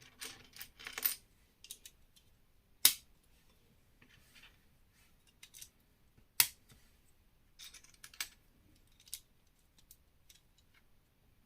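Plastic Lego pieces being handled and pressed together: a short rustle of pieces at the start, then two sharp clicks about three and six and a half seconds in, with lighter clicks in between.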